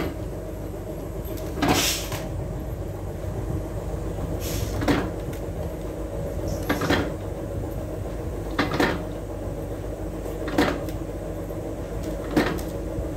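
Hand-operated brass-tag bending press striking again and again: a sharp metallic clack about every two seconds as the ram comes down on the bending die, over a steady hum.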